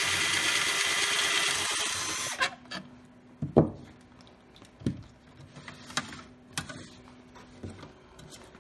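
Cordless drill boring out the head of a rivet in a sheet-metal blower housing, running steadily and stopping about two seconds in. Then a handful of separate knocks and clicks, the loudest about three and a half seconds in.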